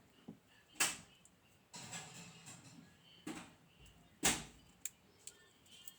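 Handling noises from a disassembled pin-tumbler lock and small metal tools: two sharp knocks, just under a second in and about four seconds in, a softer knock between them, a stretch of scraping, and a few light ticks near the end.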